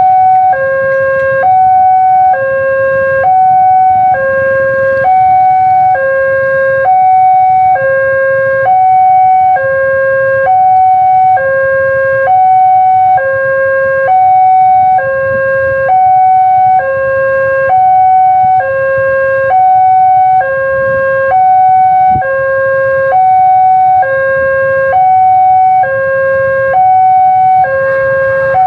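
Railway level crossing's electronic warning alarm sounding from the loudspeaker on the signal post: a loud two-tone signal, high and low alternating about once a second, warning that a train is approaching and the crossing is closed. A low engine rumble from the waiting motorcycles runs underneath.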